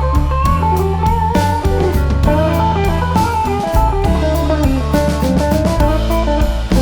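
Background music: a melodic electric guitar line over bass guitar and a steady drum-kit beat.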